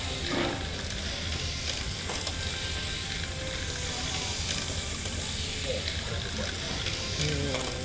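Model trains running on a tabletop layout: a steady hiss with a low hum underneath, and a few faint voices near the end.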